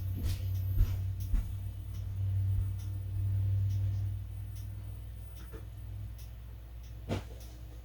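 Kitchen handling sounds: a few light clicks and knocks over a steady low hum, with one more knock near the end.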